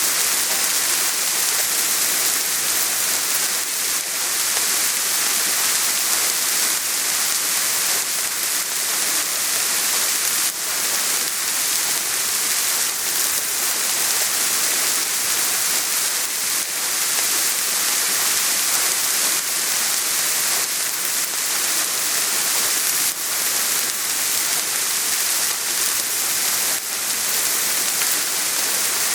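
Steady rain falling, a dense even hiss with fine drop patter.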